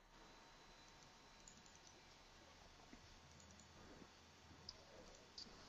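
Near silence: faint room tone with a few soft, short clicks spread through it.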